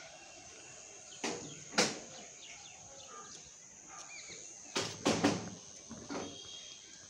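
Outdoor ambience: a steady high-pitched insect drone with a few bird chirps. Sharp knocks come twice about a second and a half in, then as a quick cluster of three around five seconds in; these are the loudest sounds.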